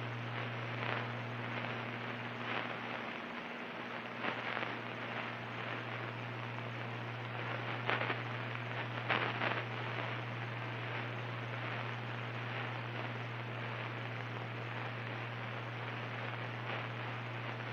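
Cirrus SR22's six-cylinder piston engine droning steadily through the cockpit intercom: an unchanging low hum under a constant hiss, with a few faint crackles.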